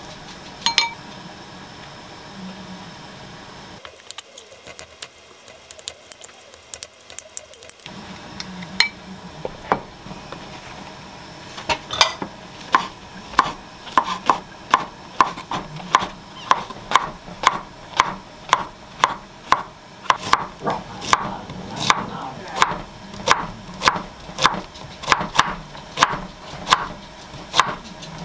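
A chef's knife slicing king oyster mushrooms and Korean zucchini on a wooden cutting board, in steady, evenly spaced strokes about two a second from about twelve seconds in. Before that there are a few scattered clinks of a wooden spoon against a glass mixing bowl.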